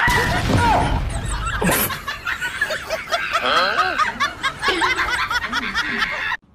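A man's shout at the start, then snickering laughter with rapid rising and falling squeals. It cuts off abruptly near the end.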